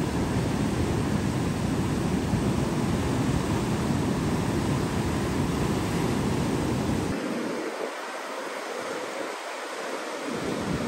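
Tidal rapids rushing through a narrow channel, with a standing wave breaking in whitewater, heard as a steady roar of water mixed with wind rumbling on the microphone. The low rumble falls away for a few seconds near the end.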